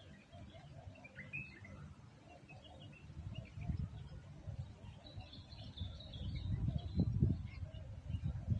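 Small birds chirping and twittering in short high calls, with a longer trill about five seconds in, over low muffled rumbles that swell loudest about seven seconds in.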